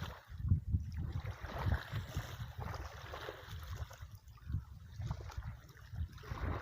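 Wind buffeting the microphone outdoors, in irregular low rumbling gusts.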